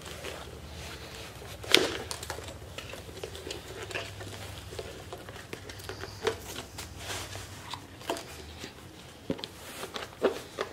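Handling noise as a fabric insulated sleeve is worked onto a plastic water jug: rustling with scattered light knocks and clicks of the plastic, the sharpest about two seconds in.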